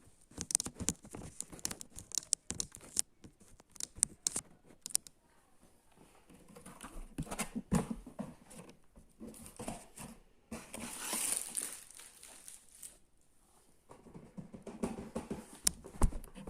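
Packaging being handled and opened: crinkling and tearing with many scattered clicks and knocks, and a longer stretch of rustling about two-thirds of the way through.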